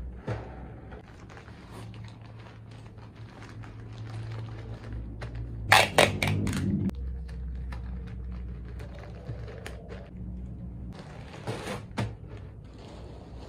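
Small plastic clicks and crinkles of beads and a plastic bag being handled. About six seconds in, packing tape is pulled from a hand-held tape dispenser in a short, loud rasp.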